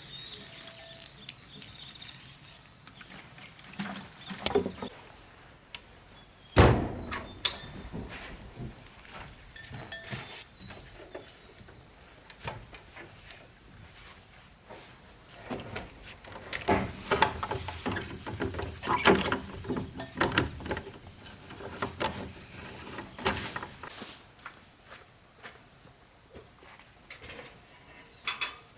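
Insects chirping in a steady high-pitched drone, with scattered knocks and clatter over it: one sharp, loud thump about six and a half seconds in, and a run of clattering knocks past the middle.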